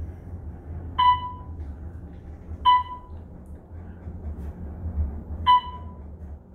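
Otis traction elevator car's chime dinging three times, short tones that ring briefly and die away, over the steady low hum of the running elevator.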